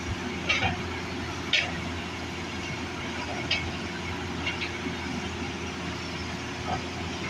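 Hitachi excavator's diesel engine running steadily at work, with about half a dozen sharp knocks scattered through it.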